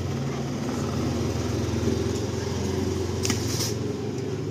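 A motor running with a steady low hum, with a couple of short sharp clicks about three seconds in.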